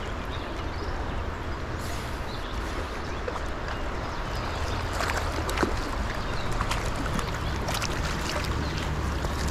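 Rushing water of a fast, rocky trout stream: a steady wash with a low rumble, broken by a few small clicks and taps around the middle and later on.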